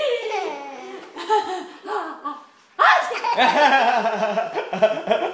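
Young children laughing in repeated high-pitched bursts, easing off about two and a half seconds in, then breaking into louder laughter again.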